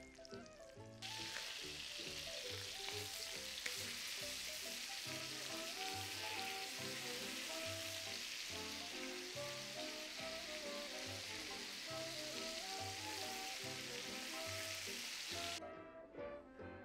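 Chicken thighs sizzling as they sear in hot oil and butter in a cast-iron skillet, turned over with tongs. The sizzle comes in about a second in and cuts off suddenly near the end.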